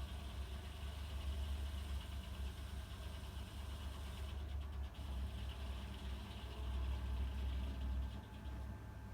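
Ford 4000 tractor engine running steadily with an even low drone.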